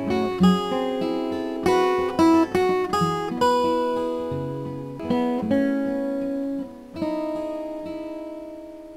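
Closing acoustic guitar music: plucked notes and strums, then a last chord struck near the end that rings and fades away.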